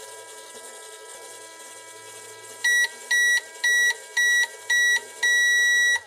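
Just Like Home toy microwave running with a steady electronic hum. About two and a half seconds in it beeps five short times and then once longer, about two beeps a second, the signal that the cooking cycle is done.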